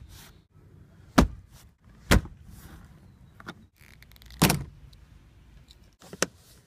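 Sharp knocks and snaps of plastic interior roof trim being pressed into place in a car, four hits at uneven gaps, the loudest about four and a half seconds in.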